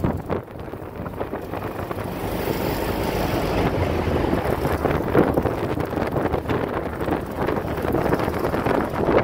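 Classic Volkswagen Beetle's air-cooled flat-four engine running as the car drives, mixed with road noise and wind buffeting the microphone. It gets louder over the first few seconds.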